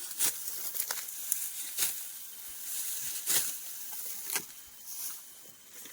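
Rice stalks rustling and swishing as they are harvested, with several sharp swishes about a second apart over a steady rustle.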